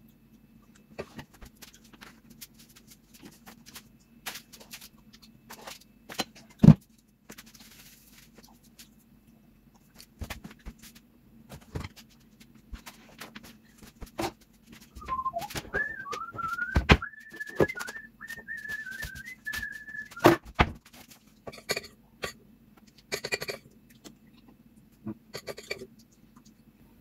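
Kitchen clatter of utensils, pots and dishes being handled, with one sharp knock about seven seconds in, over a low steady hum. Around the middle a person whistles a short wavering tune for about five seconds.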